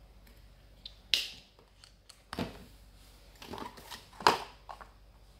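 A small plastic cream tube being handled: its flip-top cap snapped shut and the tube set down on a glass tabletop, giving a handful of sharp clicks and taps with some rustling. The loudest clicks come about a second in and about four seconds in.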